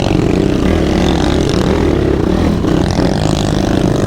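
Sport quad's single-cylinder four-stroke engine running steadily at low trail speed, close to the microphone.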